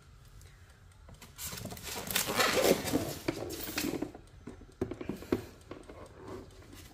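Induction cooktop being handled and lifted out of its styrofoam packing tray: scraping and rustling of the plastic body against the foam, loudest about two seconds in. Two sharp knocks follow about five seconds in.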